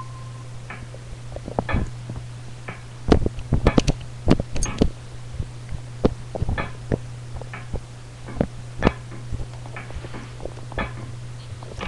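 Handling noise from a hand-held camera: irregular clicks and knocks over a steady low hum.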